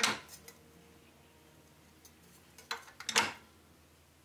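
Metal clanks from a sheet-metal brake as a lamp floor is set and clamped in it: one sharp clank at the start, then two more about three seconds in, the second the loudest.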